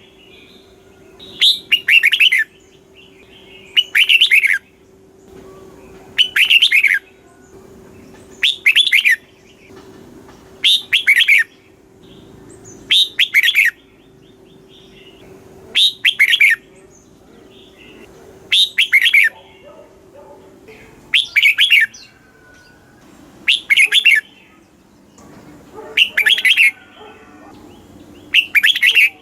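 Red-whiskered bulbul singing, repeating a short, loud whistled phrase about every two seconds. A faint steady hum sits underneath and stops about two-thirds of the way through.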